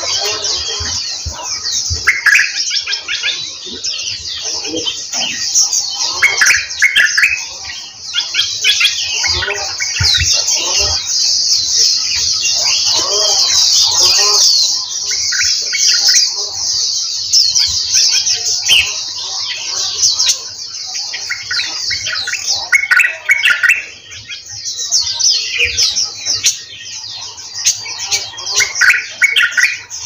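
A chorus of many small birds chirping and twittering together in an aviary: a dense, continuous high chatter, with louder, lower calls breaking through every few seconds.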